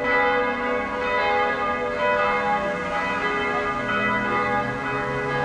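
Church bells pealing, several bells struck in overlapping succession with their tones ringing on.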